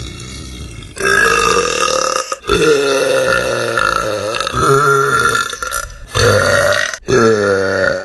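A young woman burping: a run of long, loud, drawn-out belches with wavering pitch, one after another with only brief breaks between them.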